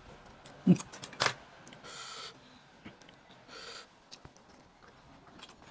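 Someone eating: scattered soft clicks of chewing and mouth sounds, with two short breathy hisses.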